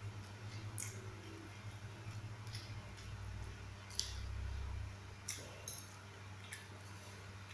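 Eating sounds: a fork clinking and scraping and a mouthful of rice and raw yardlong beans being chewed, heard as scattered faint clicks and crunches with a short bump about four seconds in, over a steady low hum.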